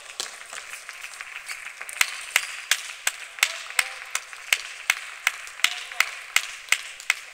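Loud, sharp hand claps in a steady rhythm, about three a second, starting about two seconds in, after a few scattered sharp clicks.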